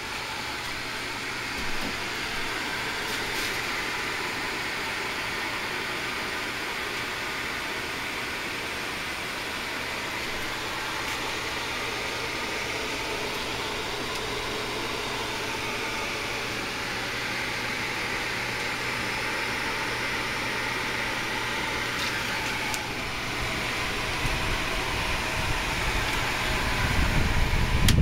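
Steady fan-like whir with an even low hum underneath. A low rumble on the microphone builds near the end.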